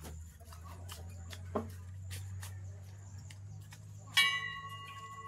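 Light clicks and taps of metal over a low steady hum, then a sharp metallic clang about four seconds in that rings on for about a second.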